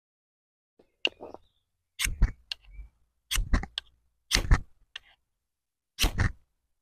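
Spine of a carbon-steel BPS Bushmate bushcraft knife scraped down a ferrocerium rod to strike sparks: five short scrapes about a second apart, the first lighter, with small clicks between strokes.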